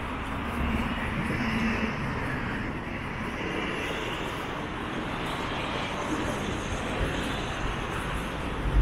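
Steady traffic noise from a busy city road, with a deeper low rumble coming in near the end.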